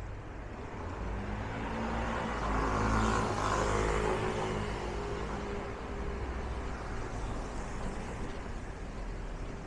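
A motor vehicle drives past close by: its engine and tyre noise rise to a peak about three to four seconds in, then fade, over a steady low city hum.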